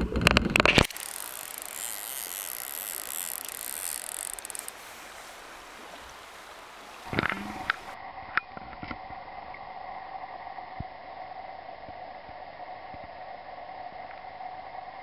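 Shallow river water running over stones, with a loud rough noise in the first second and a few sharp knocks about seven seconds in. After a cut the water sound continues more quietly under a faint steady hum.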